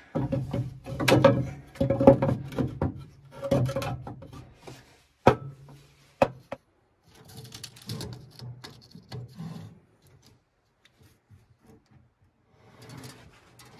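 Pressure-treated 2x6 boards being worked into a metal frame: the wood scrapes and rubs against the metal, with two sharp knocks about five and six seconds in, then quieter handling.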